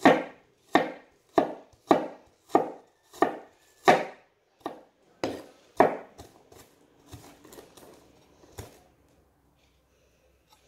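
Kitchen knife chopping a red onion on a wooden cutting board: about ten steady, even strokes, roughly one every two-thirds of a second, then a few fainter, scattered knocks as the chopping slows and stops.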